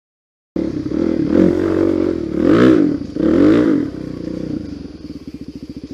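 Single-cylinder dirt bike engine cutting in about half a second in, revving up and back down twice, then dropping to a slow, chugging low-rev pulse near the end.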